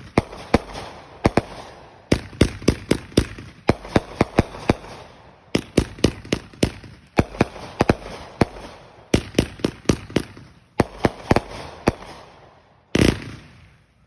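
Multi-shot consumer fireworks cake firing: sharp bangs a few each second, in volleys with short lulls between them as comets launch and burst, and one louder, longer boom near the end.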